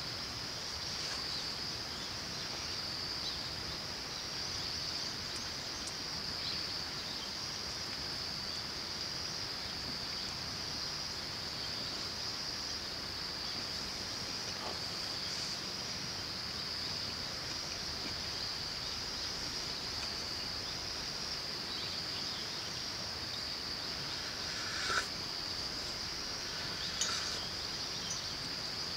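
Steady high-pitched insect chorus over the even hiss of a flowing river, with two brief sharp sounds near the end.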